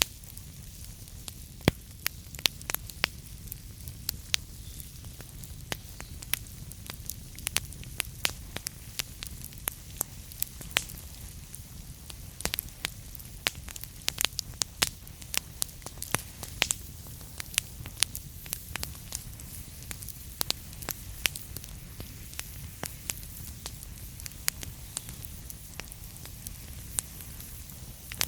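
Wood burning in a fireplace: irregular sharp crackles and pops, several a second, over a steady low rumble and hiss.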